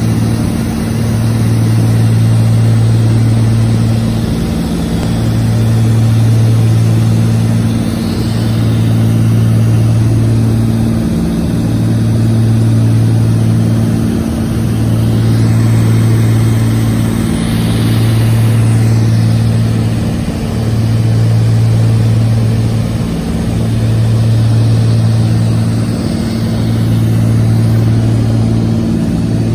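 Cabin drone of a Beech Baron 55's twin piston engines and propellers in cruise flight, a steady loud hum that throbs slowly about every three seconds: the beat of the two propellers turning at slightly different speeds, not synchronized.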